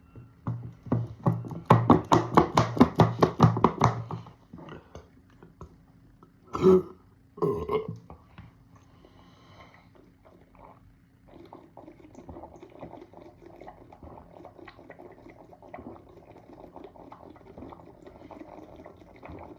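A man burping from chugging carbonated cola: one long, rattling burp from about half a second in to about four seconds, then two short burps around the seventh and eighth seconds. After that comes a quieter stretch of faint, steady crackle.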